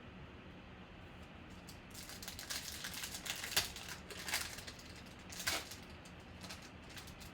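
Trading cards being handled: a run of light clicks and rustles from about two seconds in to about six, with a few sharper snaps among them.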